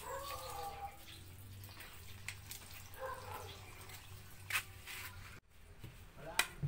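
Water dripping and splashing at a tap with a garden hose, with a few short murmured voice sounds and several sharp clicks.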